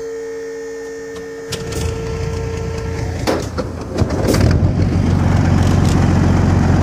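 BMP infantry fighting vehicle's UTD-20 diesel engine being started: a steady electrical hum, then about one and a half seconds in the engine cranks and catches with a few sharp clacks, and from about four and a half seconds it runs with a steady low drone.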